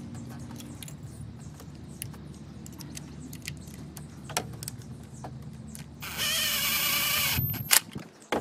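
Light clicks of plastic and metal as the ignition coil is handled, then about six seconds in a power driver whirs for just over a second, driving the coil's 5/16-inch hold-down screw, followed by a sharp click. A steady low hum sits underneath.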